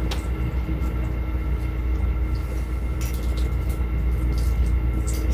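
Steady low mechanical hum with a few faint steady tones above it, and faint small crackles of balut eggshell being peeled by hand.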